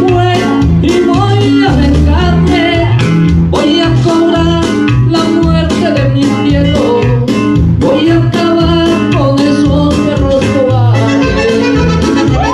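Latin American-style music with guitar over a steady bass and beat, with a gliding melodic lead line on top.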